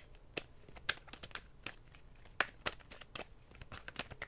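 Tarot cards being shuffled by hand: about a dozen sharp, irregularly spaced card snaps and clicks.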